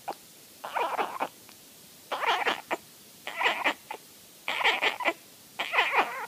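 Newborn kitten crying: five short, high mews, a little over a second apart.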